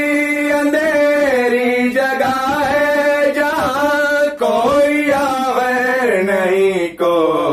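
A single voice singing an Urdu devotional song (a manqabat in praise of Ali), holding long, wavering notes that slide from pitch to pitch, with brief breaths between phrases and no beat.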